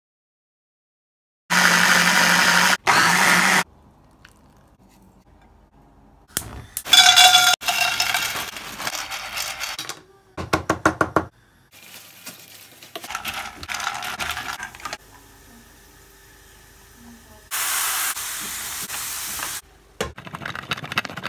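A run of separate kitchen sounds: an electric chopper whirring steadily for about two seconds as it purees tomatoes, a knife chopping rapidly on a cutting board, and macaroni frying in a pan, with loud stretches of sizzling later on.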